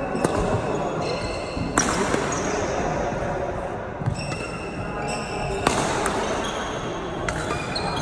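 Badminton rally: about four sharp racket strikes on the shuttlecock a second or more apart, with short high squeaks of shoes on the court floor between them.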